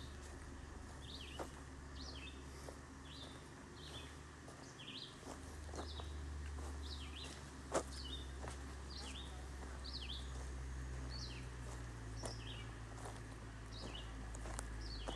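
A bird repeating one short, high chirp over and over, about one and a half times a second, over a steady low rumble. A few sharp clicks are scattered through it, the loudest about eight seconds in.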